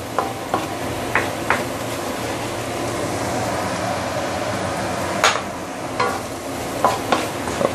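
Chili spice paste sizzling in oil in a stainless steel wok, being sauteed until fragrant. A wooden spatula scrapes and knocks against the pan a few times about a second in, and again near the end.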